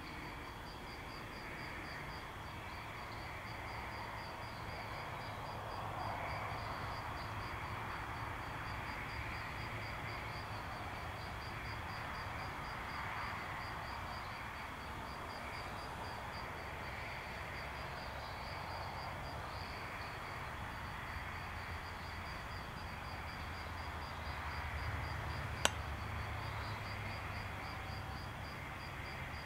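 Crickets chirping at night: a regular high chirp repeating a few times a second over a steady insect hiss. A single sharp click comes near the end.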